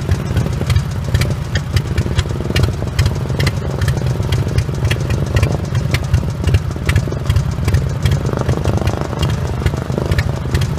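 Lawn-tractor engine running steadily, with a low rumble and rapid irregular ticking.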